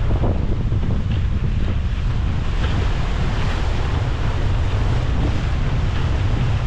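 Wind buffeting the microphone over the steady rush of sea water at the bow of a sailing brigantine under way.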